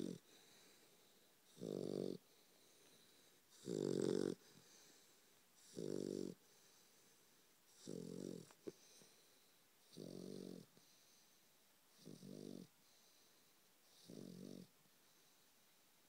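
Twelve-week-old bullmastiff puppy snoring, a short snore of about half a second roughly every two seconds.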